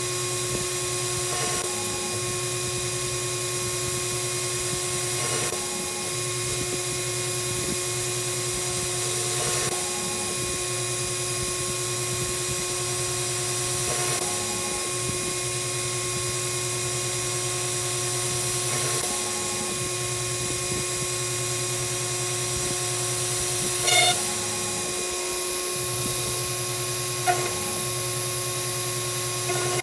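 CNC router spindle running steadily while a small end mill mills a brass lock plate, a constant machine whine with several fixed tones. A short sharp click sounds about every four to five seconds, seven in all.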